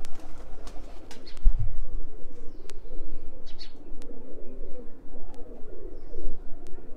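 Domestic pigeons cooing steadily, with scattered sharp clicks, a low thump about one and a half seconds in and a brief high chirp near the middle.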